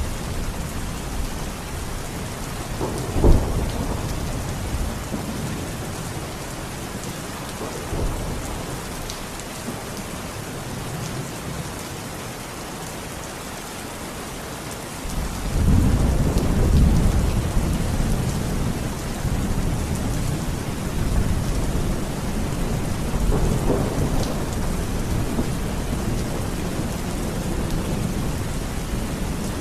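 Thunderstorm: steady heavy rain with thunder, a sharp clap about three seconds in and a smaller one near eight seconds. About halfway through a long low rumble of thunder starts suddenly and rolls on for several seconds, swelling again later.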